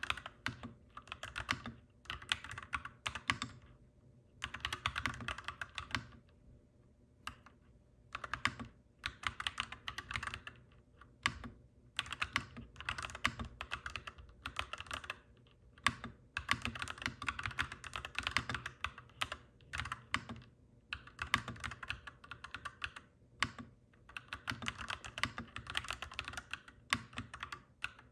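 Typing on a clacky mechanical keyboard: quick runs of key clicks in bursts, broken by short pauses of about a second.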